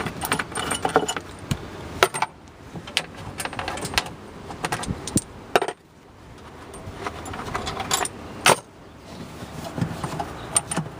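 Half-inch bolts being unscrewed and pulled out of a skid steer's sheet-metal cab tub: irregular metallic clinks and rattles of bolts and tools, with a few sharper knocks.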